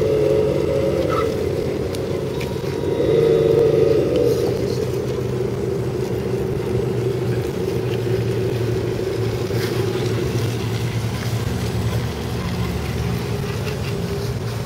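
Tamiya CC-01 RC scale truck's electric motor and gears whirring as it crawls over dirt, with the pitch and loudness rising and easing with the throttle.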